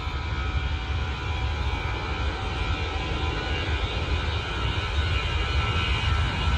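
Aircraft engines running: a steady whine of several high tones over a deep rumble, growing slightly louder near the end.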